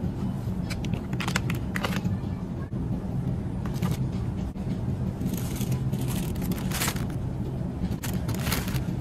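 Shopping cart rolling on a store floor with a steady low rumble, while plastic produce clamshells and a bagged salad clatter and crinkle as they are dropped into the wire basket several times.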